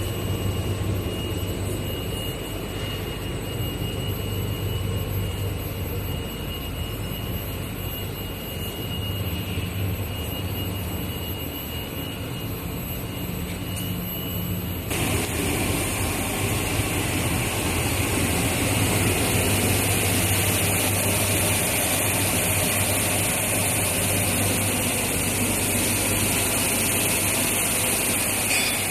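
Rubber co-extrusion and microwave curing production line running: a steady machinery hum with a thin high whine. About halfway through it changes abruptly to a louder, hissier machine noise.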